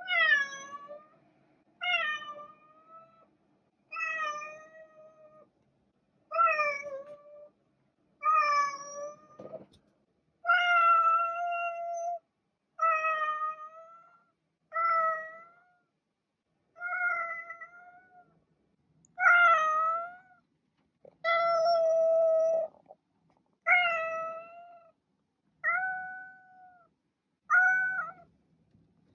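Domestic cat meowing over and over, about one meow every two seconds. Each meow opens with a quick downward slide, and a few are drawn out longer.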